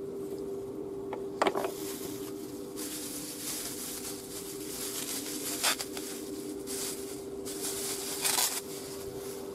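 A knife set down on a wooden table with a click, then a plastic bag crinkling in two spells as a jar is pulled out of it. A steady low hum runs underneath.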